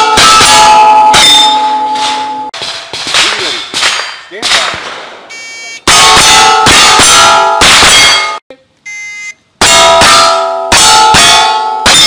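Gunshots fired in quick strings at steel targets, each hit followed by the plates ringing. Between the strings come short electronic beeps from a shot timer signalling the start.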